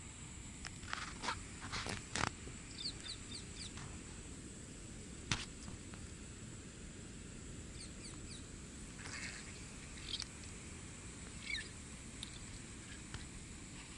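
Handling sounds as a freshly caught catfish is taken off a fishing line: several sharp knocks and rustles, clustered in the first couple of seconds and one more about five seconds in. Short high bird chirps come between them over a steady high-pitched hum.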